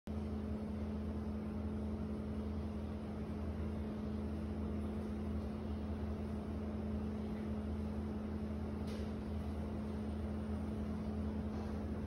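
Steady machine hum with a constant low tone over a faint background hiss; a brief faint click about nine seconds in.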